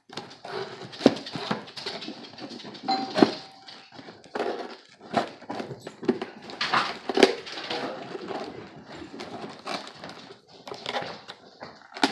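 Package being opened by hand: irregular knocks, taps and rustling of cardboard and plastic packaging.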